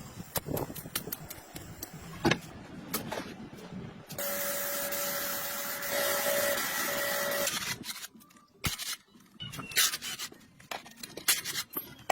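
Clicks and knocks of parts being handled, with a small machine running steadily for about four seconds in the middle, then more scattered taps.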